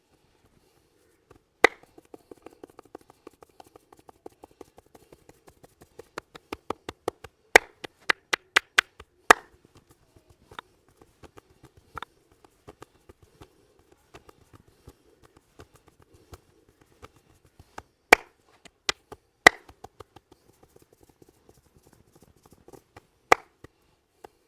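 Percussive hand strokes of an Indian head massage: sharp slaps and pats on head and shoulders. In the middle comes a quicker run of strokes, about three a second, growing louder, with single loud claps scattered through and soft rubbing between them.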